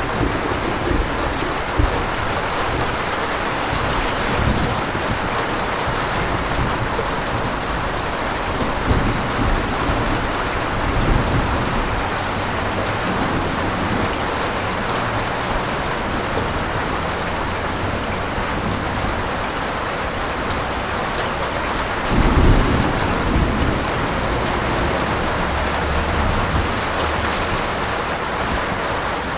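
Steady rain falling, with thunder rumbling low underneath. A louder roll of thunder comes about three-quarters of the way through.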